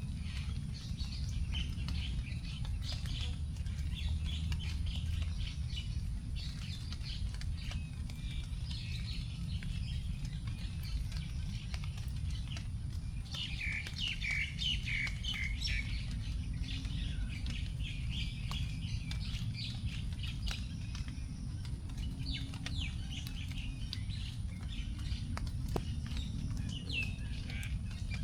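Several birds chirping and calling, with a dense run of quick falling notes about halfway through. Raindrops drip from the leaves now and then, over a steady low rumble.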